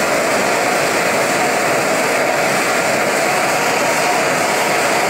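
Handheld gas blowtorch burning with a steady, loud hiss of flame as it chars a hickory hammer handle.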